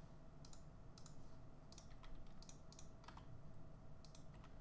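Faint, irregular clicks of a computer keyboard and mouse, about a dozen scattered key presses and button clicks.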